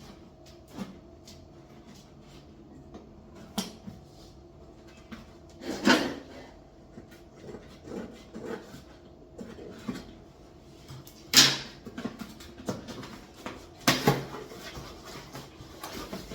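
A boxed blender being unpacked by hand: scattered knocks, scrapes and rustles of cardboard packaging and parts, with louder bumps about six, eleven and fourteen seconds in.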